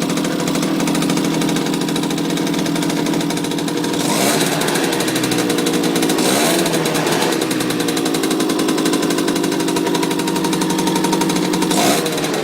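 Small Yamaha two-stroke moped engine running just after being kick-started, with a steady, rapid two-stroke beat. The throttle is blipped a few times, the pitch rising and falling, between about four and seven seconds in and once more near the end.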